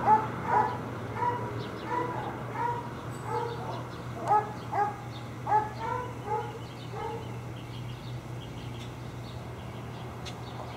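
Dogs barking in a steady series, roughly one to two barks a second, dying down after about seven seconds.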